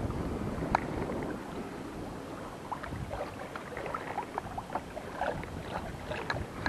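Wind buffeting the microphone, with small waves lapping against a small boat's hull in scattered short splashes and taps that come more often in the second half.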